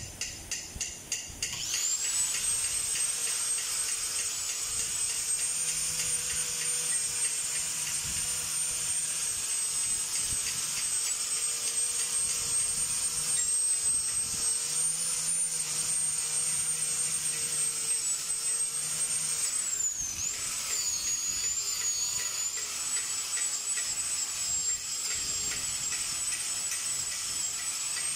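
Electric angle grinder with a twisted-wire cup brush starting up about two seconds in, then running with a steady high whine as the wire brush scrubs the underside of the engine block. Its pitch dips and recovers about twenty seconds in.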